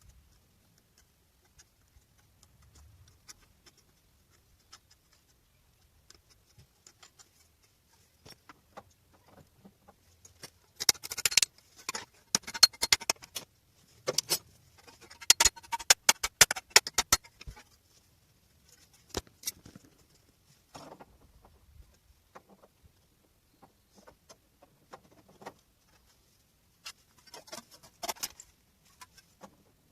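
Hand tools working on car body sheet metal: irregular taps, clicks and scrapes, coming in busy spells, the loudest in the middle.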